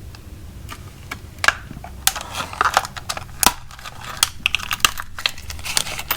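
Handfuls of small steel M8 x 1.25 flange bolts clinking against each other as they are handled and shifted in their box: a rapid, irregular string of sharp metallic clicks, busiest from about two seconds in.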